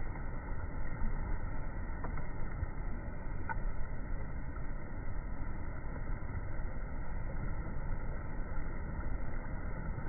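Steady rush of flowing river water, a continuous noisy wash with a low rumble underneath.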